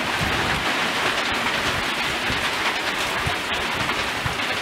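Heavy rain pouring down in a strong storm, a steady dense hiss.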